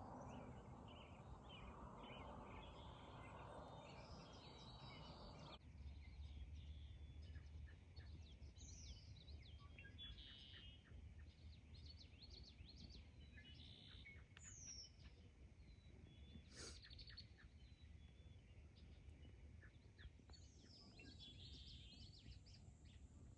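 Faint outdoor ambience: scattered small bird chirps and a few quick falling whistle calls over a low, steady background rumble.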